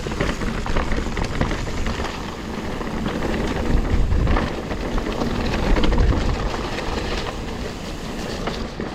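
Mountain bike on Specialized Cannibal tyres descending wet singletrack: tyres rolling over dirt and rocks, with the bike and chain clattering and a low rumble throughout.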